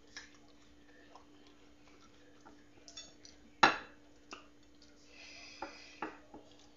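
Scattered light clicks and knocks as fruit slices are handled and dipped into a ceramic bowl, with one sharp, louder click a little over halfway through. A faint steady hum runs underneath.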